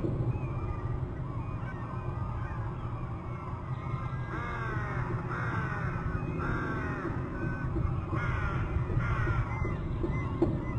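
A bird calling about five times in quick succession from about four seconds in, each call falling in pitch, over a steady low rumble.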